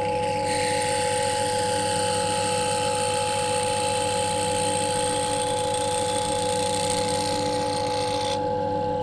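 Ryobi RDP102L drill press motor running with a steady whine, its bit cutting into a piece of aluminium from about half a second in until it breaks off near the end, adding a harsh hiss over the motor.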